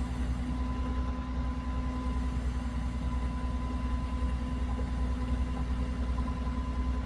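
An engine running steadily at idle: a constant low hum that holds an even pitch throughout.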